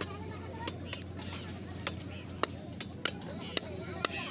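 Large knife chopping through a rohu fish onto a wooden block, sharp knocks coming roughly every half second, under a steady hum and faint voices.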